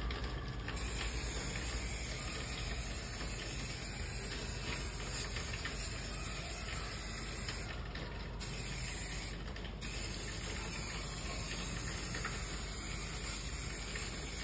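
Aerosol can of rodent-repellent spray hissing steadily as it is sprayed over a car's engine bay, with two short breaks, about eight and nine and a half seconds in, where the nozzle is let go.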